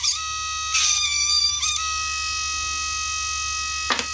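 The small DC motor of a homemade pencil-sized drill whines steadily. Its fine bit rasps into a thin sheet in short bursts about a second in, and the motor's pitch dips briefly under the load. A single sharp click comes near the end while the motor keeps running free.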